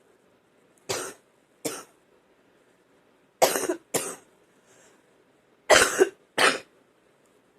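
A woman coughing a wet, phlegmy chest cough as she tries to bring up mucus: six short coughs in three pairs.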